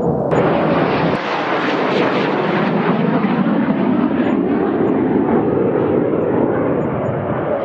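Fighter jet engine roar, loud and rushing, cutting in abruptly about a third of a second in. Its hiss then slowly dulls over the following seconds.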